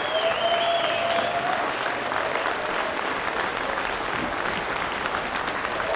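A large indoor crowd applauding steadily after a speech, with a high whistle and a held cheer over the clapping in the first second or so.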